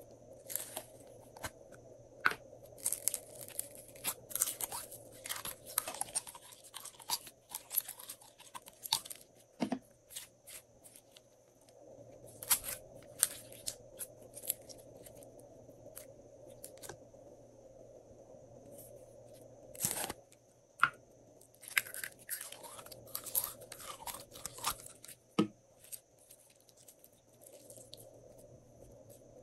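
Glossy slime being pressed, squeezed and stretched by hand, giving off sharp sticky clicks and crackles. They come in two busy spells, one in the first third and one about three-quarters of the way through, over a faint steady hum.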